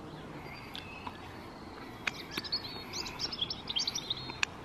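Small songbirds chirping in short, quick, gliding notes, thickest in the second half, with a few sharp clicks about two seconds in and just before the end.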